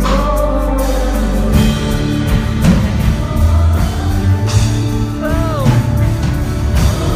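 Band music with a singing voice over a steady instrumental backing; the sung notes glide near the start and again about five seconds in.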